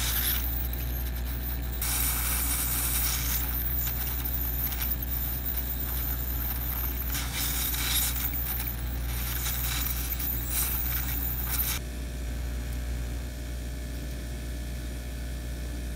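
Hot air rework station blowing hot air through its nozzle onto a surface-mount capacitor to melt its solder, a hissing rush that swells and eases and cuts off about twelve seconds in, leaving a low steady hum.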